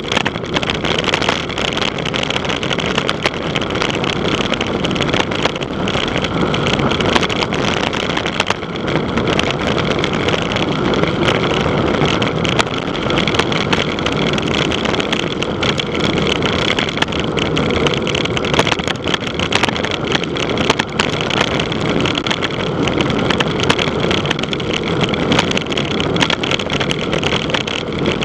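Wind rushing over the microphone of a camera carried on a moving bicycle: a loud, steady, buffeting rumble and hiss with no clear tone.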